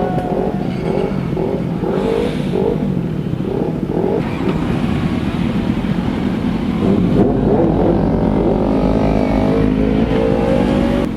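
Superbike engine revved in a quick run of throttle blips, each a short rising note, then pulling hard with a long climbing pitch as it accelerates in the last few seconds.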